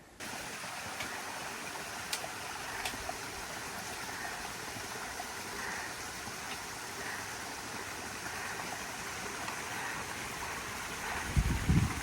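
Steady rushing noise, like running water or strong wind through mountain vegetation, with a few faint ticks. Near the end a brief loud low rumble, like a gust hitting the microphone.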